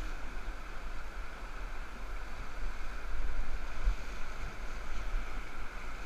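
Whitewater rapids rushing steadily around an inflatable raft, with wind rumbling on the microphone.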